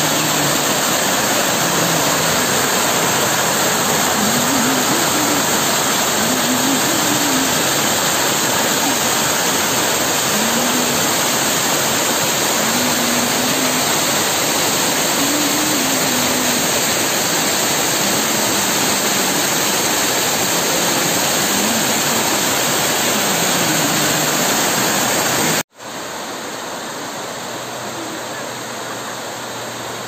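Water pouring down a rocky waterfall close by: a loud, steady rush of white water. About 26 seconds in it cuts off abruptly, and a quieter rush of falling water follows.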